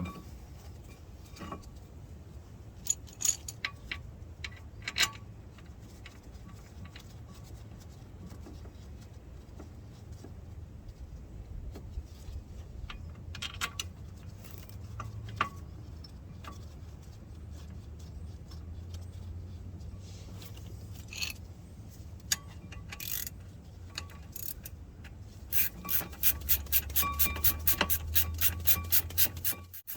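Scattered metallic tool clicks and clinks, then near the end a hand ratchet clicking rapidly, about seven or eight clicks a second, as bolts are run in during reassembly of the hub and brakes.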